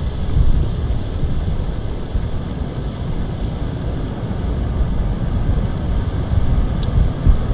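Wind buffeting the microphone in a snowstorm: a low, gusting rumble that rises and falls.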